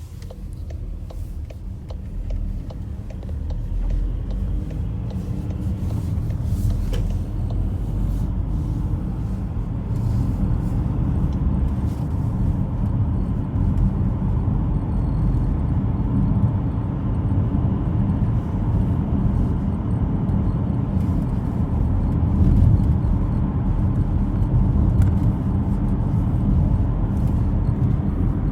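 Cabin of a moving 2018 Volkswagen Tiguan: a steady road and engine rumble that grows louder over the first few seconds. Faint, irregular clicks and creaks come through it: the cricket-like squeak from the dashboard trim.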